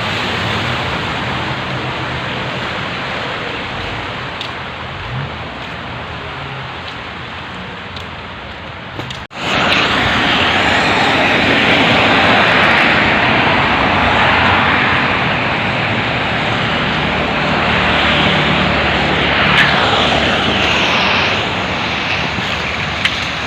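Heavy rain with car traffic driving on a flooded, wet road, as a steady noise. It breaks off sharply about nine seconds in and comes back louder.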